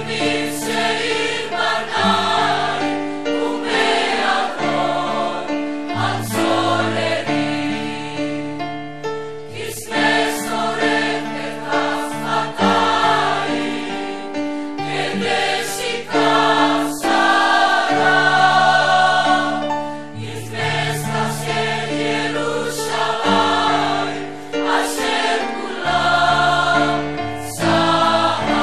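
A large choir of men and women singing together, holding long notes in chords that change every second or two.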